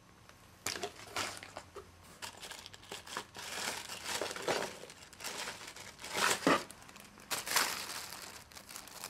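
Plastic packaging crinkling and rustling in irregular bursts as a box of small junk-drawer odds and ends is rummaged through by hand; the loudest crinkles come about six and seven and a half seconds in.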